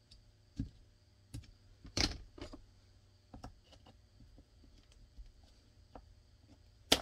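Scattered light clicks and taps of hands working painter's tape and a marker on a holster-press board, with a sharper click about two seconds in and another near the end.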